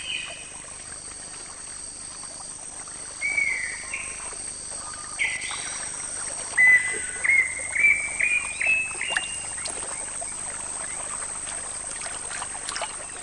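Flooded rainforest ambience: a bird gives short whistled notes, then a run of about seven notes stepping up in pitch, over a steady high drone.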